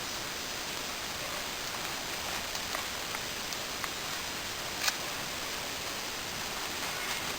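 Steady hiss of outdoor background noise, with a few faint ticks and one sharper click about five seconds in.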